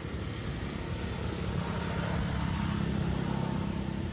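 A motor engine running, with a low steady hum that grows louder through the middle and eases near the end, like a vehicle passing by.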